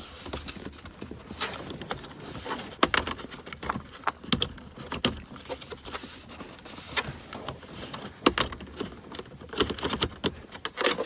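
Plastic rear console vent panel of an Audi Q5 being pressed and tapped into its opening: scattered clicks, taps and rattles of plastic on plastic as its tabs are seated.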